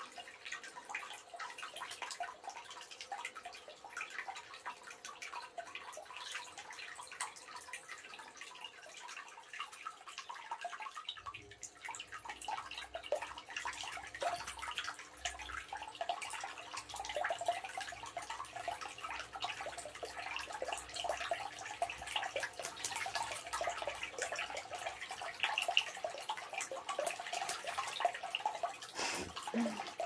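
Shallow water in a bathtub splashing and dripping as a quaker parrot bathes in it: a steady, irregular patter of small splashes and drops. A low rumble of running water joins about a third of the way through.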